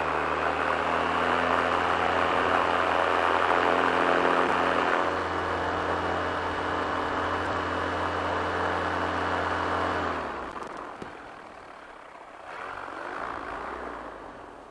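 Paramotor engine running steadily at a fixed speed on a ground test after a carburetor overhaul, then winding down and stopping about ten seconds in. A fainter rush of noise follows near the end.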